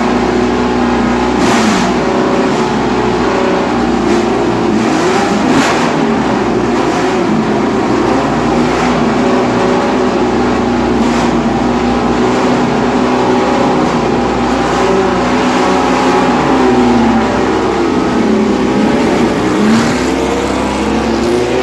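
Ford-Cosworth DFV V8 of a 1970s Formula One car running loud and steady, its pitch rising and falling with the throttle.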